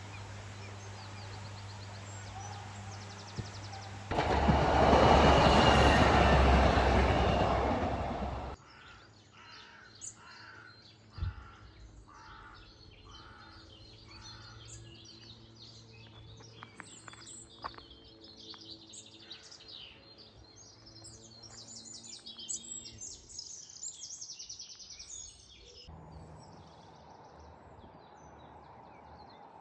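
A loud rushing noise for about four seconds, cut off suddenly, then birds singing outdoors: many short, repeated chirps and phrases.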